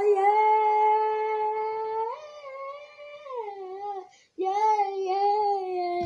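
A child's voice holding long drawn-out vocal notes, sung or wailed. A steady note rises about two seconds in and wavers, breaks off briefly near four seconds in, then resumes as a long note that slowly falls in pitch.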